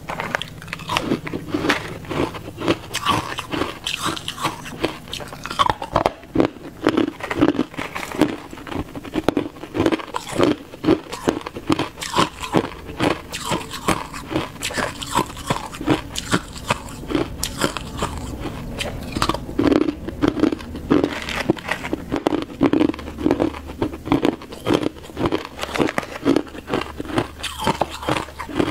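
Crushed frozen ice being bitten and chewed close to a clip-on microphone: a steady run of crisp crunches with no pause.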